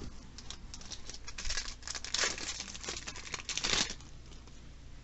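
Yu-Gi-Oh! trading cards being handled and flipped through by hand: irregular rustling and crinkling, loudest about two and again three and a half seconds in.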